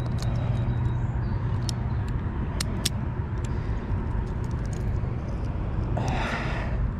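Steady low rumble of road traffic, with a few faint sharp clicks.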